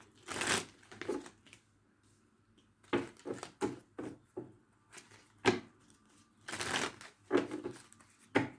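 A tarot deck being shuffled by hand, in several short bursts with brief pauses between them.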